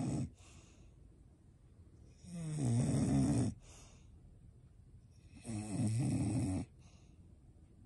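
Bulldog snoring loudly in its sleep: one snore fading out just at the start, then two long snores about three seconds apart.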